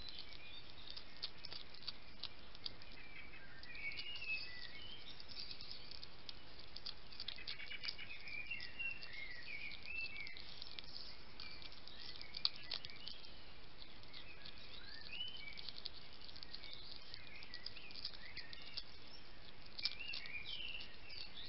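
A European hedgehog eating from a plate, with an irregular run of small crunches, clicks and wet smacking sounds as it chews.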